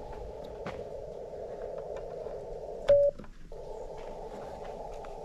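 mcHF QRP transceiver's receiver hiss from its speaker, steady and narrow, with one short Morse sidetone beep keyed from the paddle about three seconds in. The hiss drops out for about half a second right after the beep, with a few faint handling clicks.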